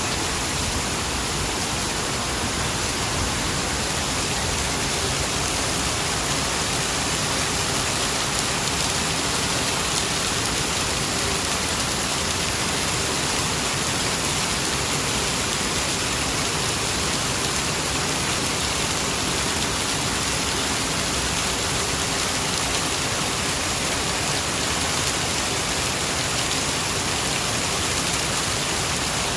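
Steady, heavy rain falling and spattering on surfaces, an even hiss with no breaks.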